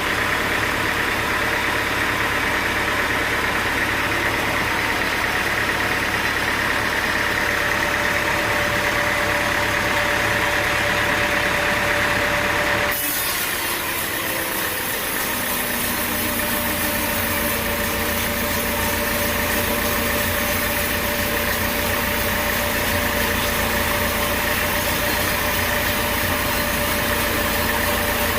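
Sawmill engine running steadily. About 13 seconds in the sound changes abruptly: the deep rumble drops out for a couple of seconds before returning, and a brighter hiss comes in.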